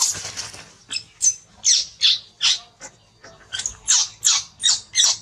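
Newborn baby monkey crying in a quick series of short, high-pitched squeals, about three a second, with a short pause about halfway through.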